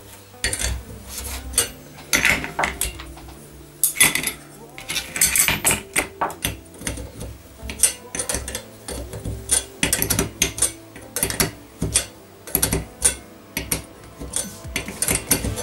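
Small metal engine parts and hand tools clinking and clattering as the clutch end of a nitro RC engine is worked on by hand: many irregular sharp metallic clicks and taps.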